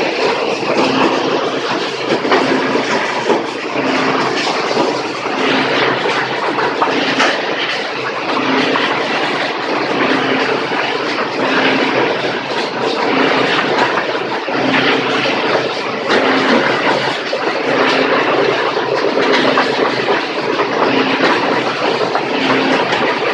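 Plastic crusher machine running, with a dense clattering rattle and sharp cracks as hard HDPE plastic is broken up. Under it a low hum swells about once a second.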